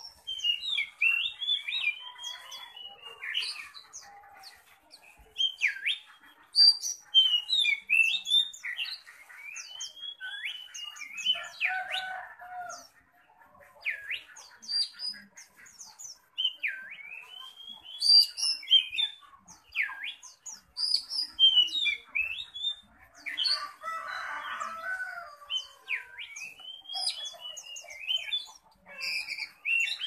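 Caged oriental magpie-robin singing a fierce, varied song of sharp whistled notes and quick rising and falling sweeps, almost without pause. It is a bird in contest-ready form, singing hard.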